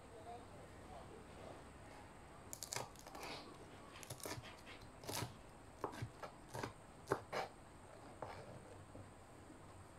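Kitchen knife slicing small red chillies on a plastic cutting board. Irregular light cuts and taps of the blade on the board start about two and a half seconds in and stop shortly before the end.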